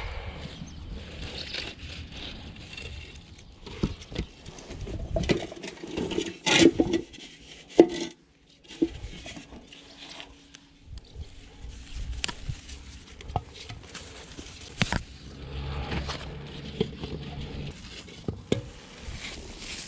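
Gloved hands harvesting courgettes and aubergines: scattered knocks, scrapes and leaf rustling as the vegetables are handled and dropped into a white plastic bowl. There is a cluster of sharper knocks about six to eight seconds in.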